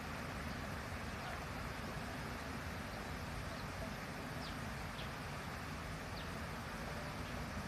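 Steady outdoor background noise, a rushing hiss over a low rumble, with a few faint, short, high bird chirps scattered through it.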